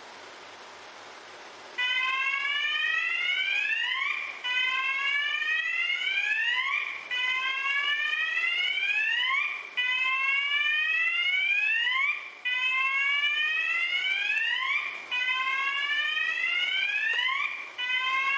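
Electronic fire alarm sounder giving a repeated rising whoop tone, each sweep about two and a half seconds long, starting about two seconds in after a steady hiss.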